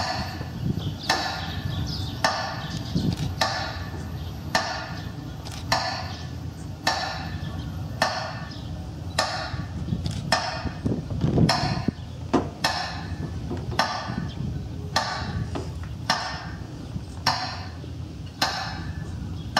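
Metronome beats played over a loudspeaker: steady wooden ticks a little over one a second, each ringing briefly, as heard during a minute of silence, over a low rumble.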